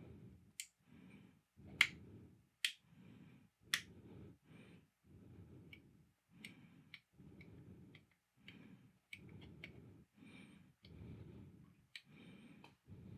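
Small light switches on a wooden busy board toy clicking as they are flipped, with sharp clicks at irregular intervals, a few louder ones in the first four seconds and lighter ones after.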